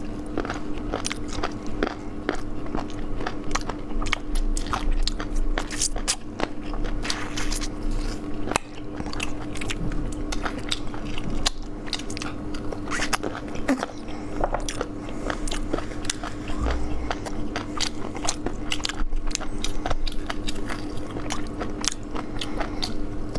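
Close-miked biting and chewing of crispy fried chicken legs, with many sharp crunches in quick succession as the meat is pulled from the bones. A faint steady hum runs beneath.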